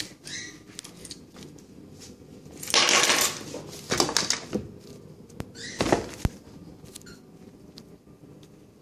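Handling noise and footsteps as a phone camera is carried across a tiled floor. A short burst of rustling comes about three seconds in, then a few scattered clicks and knocks.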